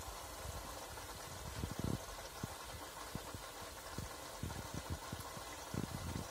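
Bosch Classixx 6 front-loading washing machine turning its drum in an anti-suds rinse: the extra rinse run when suds are detected. Water sloshes in the drum with a steady run, and there are irregular low thumps as the wet pillow tumbles.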